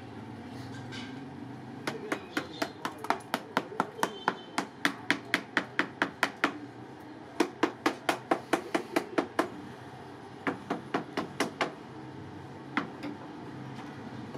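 A quick run of sharp, hard knocks, about three a second, in three bursts with short pauses, then a single knock near the end.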